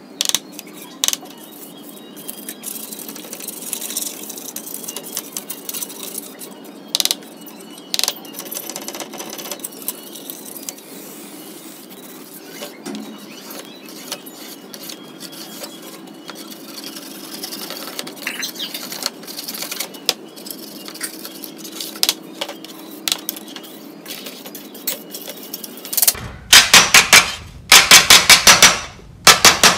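Hands scraping and brushing caked dirt off a disc player's sheet-steel panels, with small scratches and clicks. Near the end, a loud quick series of hammer blows rings on a bent sheet-metal case panel as it is beaten straight against a hammer head used as a dolly.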